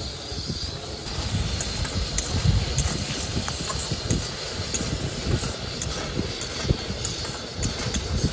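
Chopped onions frying in a steel kadai on a portable LPG stove: a steady sizzle and burner hiss, with a steel spatula clicking and scraping against the pan. Gusty wind rumbles on the microphone underneath.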